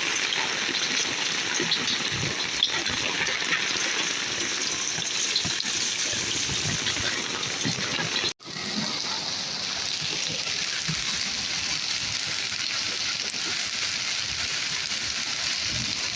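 Heavy rain pouring down in a steady rushing hiss, broken off abruptly for a moment just over eight seconds in before it resumes.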